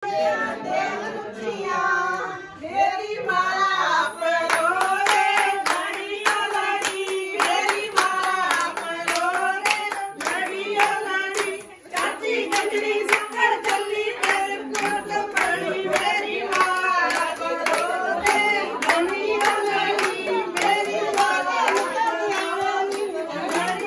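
A group of women singing a Punjabi song together, with steady rhythmic hand clapping that comes in about four seconds in, about two to three claps a second. The singing and clapping break off briefly just before twelve seconds, then go on.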